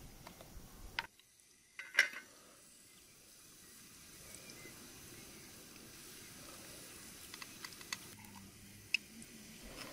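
Faint steady sizzling from a pot of food cooking over a fire. A sharp clink comes about two seconds in, and a few small clicks and ticks near the end, as spice jars and utensils are handled over the pot.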